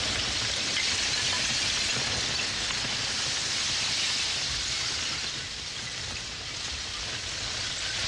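River ice breaking up in spring meltwater: a steady, dense hiss of water and crackling ice fragments, easing slightly about two-thirds of the way through.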